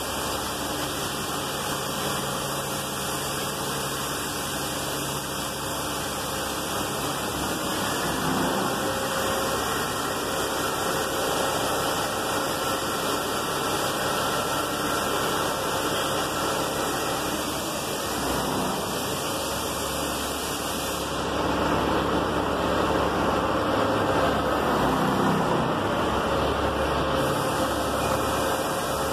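A truck engine running steadily, with a faint whine over a hiss of noise. The note shifts slightly about two-thirds of the way through.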